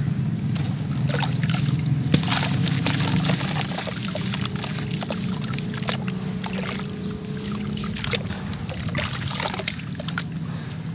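Hands crumbling soaked sand-cement chunks in a tub of water, with irregular sloshing, splashing and squelching as the mud is squeezed and rubbed under water. The material is wet through, so it breaks with no dry crunch.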